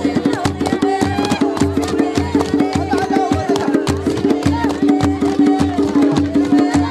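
Tende music: a tende drum keeps a steady beat under group singing, with many sharp percussive strikes.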